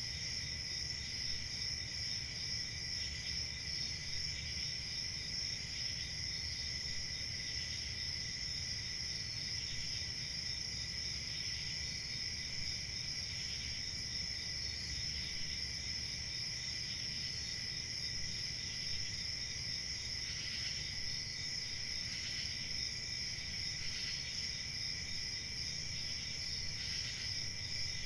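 Crickets chirping in a steady chorus of several overlapping high trills, over a low background rumble.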